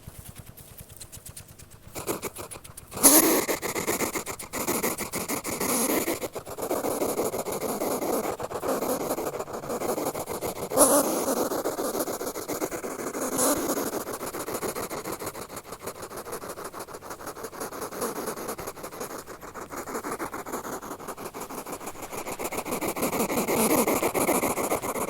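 Hedgehog snuffling, a dense run of rapid, fine, scratchy puffs. It is quiet for the first few seconds and louder from about three seconds in.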